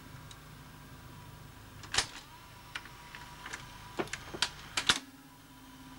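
Steady hum and a thin whine from a running JVC HR3330 top-loading VHS recorder. Between about two and five seconds in, a quick string of sharp mechanical clicks and clunks is heard as the machine's controls and mechanism are worked.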